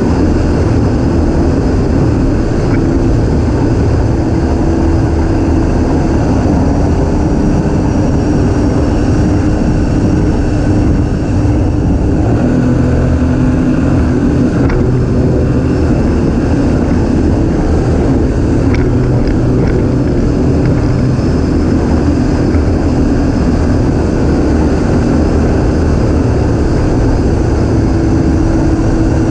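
Yamaha 150 SHO four-stroke outboard on a Skeeter ZX150 bass boat running steadily at speed on plane, with the rush of wind and water.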